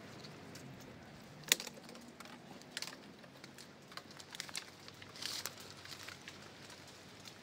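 Scattered light clicks and crackles over a faint background hiss, the sharpest single click about a second and a half in and a small cluster of them near the end.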